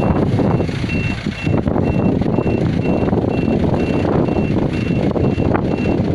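Strong wind buffeting the microphone with a loud, rumbling roar, while a vehicle's reversing alarm beeps steadily at about two high beeps a second.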